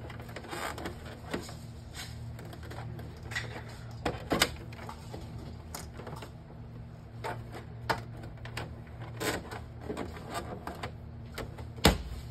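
Epson L810 inkjet printer running its power-on cycle, which includes an automatic head cleaning: a steady low motor hum with irregular clicks and ticks from the mechanism. A sharp knock near the end.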